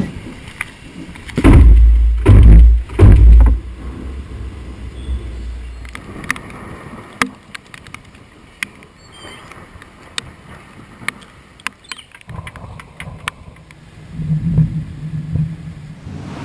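Thunder during a rainstorm: a few loud low rumbling bursts about a second and a half in, then a quieter stretch with scattered sharp ticks, and a lower rumble again near the end.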